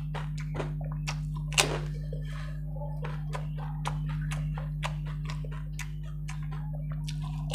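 Crisp golgappa (pani puri) shells cracking and being chewed close to the microphone, with small wet clicks as the puris are dipped in spiced water; one louder sharp crack about a second and a half in. A steady low hum runs underneath.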